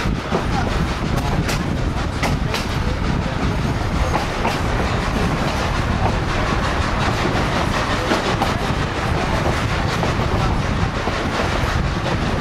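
Durango & Silverton narrow-gauge passenger coach running along the track: a steady rumble of wheels on rail, with occasional sharp clicks as the wheels cross rail joints.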